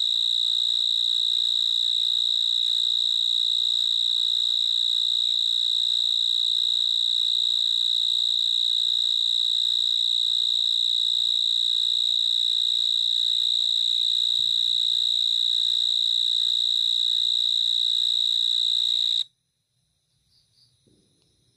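Cricket singing a continuous high-pitched trill, loud and unbroken, which stops abruptly near the end.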